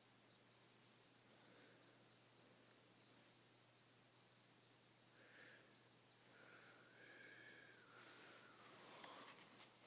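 Near silence with a faint, high-pitched chirping that repeats evenly several times a second, like an insect, over a low electrical hum.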